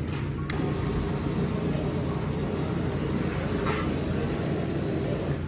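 Steady low rumble of restaurant background noise, with two light clicks, one about half a second in and one near four seconds.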